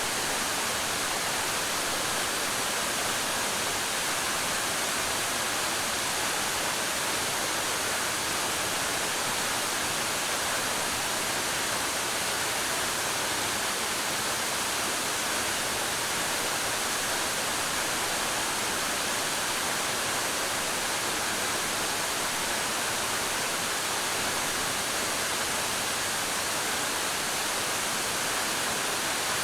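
Waterfall pouring into a pool: a steady, even rush of falling water, unchanging throughout.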